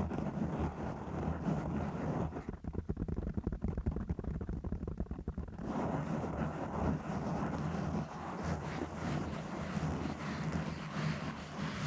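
Scratching and rubbing directly on a microphone, heard as close, rumbling, scratchy noise. From about two and a half to five and a half seconds in it turns duller and more muffled, with fast, dense strokes, then goes back to brighter scratching.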